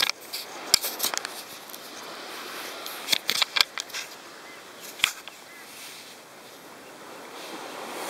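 Camera handling noise: fingers knocking and rubbing on the camera body as it is picked up. There are a few sharp clicks near the start, a quick cluster around three seconds in and one more about five seconds in, over a steady background hiss.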